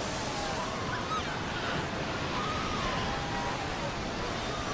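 Surf breaking and washing steadily up the shore, with faint wavering calls of seal pups over the noise of the water.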